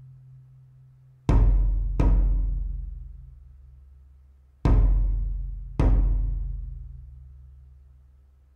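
Large Chinese barrel drum struck with wooden sticks: four deep strokes in two pairs, one pair about a second in and another near the middle, each ringing on and dying away slowly.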